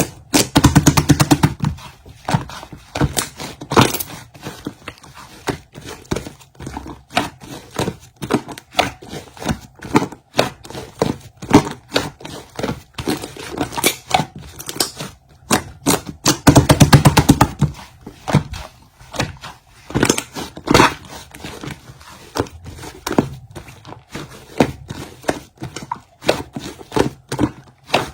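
Slime being squeezed and stretched by hand, giving irregular sticky clicks and pops. It turns into denser, squelchier squishing briefly about a second in and again around seventeen seconds.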